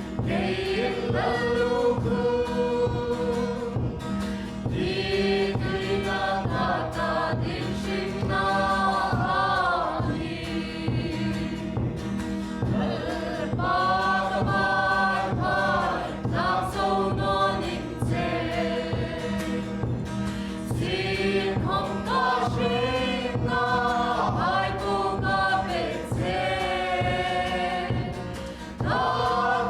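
A choir singing a gospel worship song with instrumental accompaniment.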